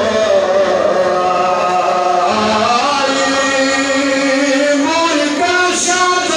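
A man's voice chanting a Pashto rubai, a mournful Muharram recitation, into a microphone without accompaniment, holding long wavering notes.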